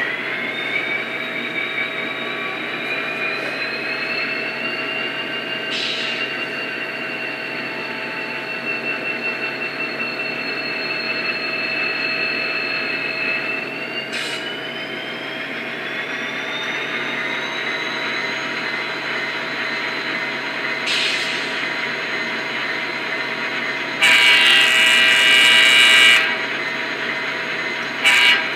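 Sound-equipped N-scale model of a VIA Rail F40PH-2D diesel locomotive playing its recorded diesel engine sound while standing still: a steady running sound with a whine that climbs in pitch twice, near the start and again around the middle. Brief sharp bursts come every several seconds, and a horn blast of about two seconds sounds near the end.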